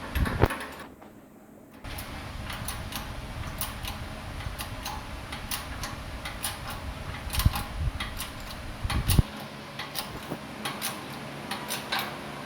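Shop press working on a car's front wheel hub to push the bearing out: scattered sharp metallic clicks and ticks, with two heavier thumps near the middle.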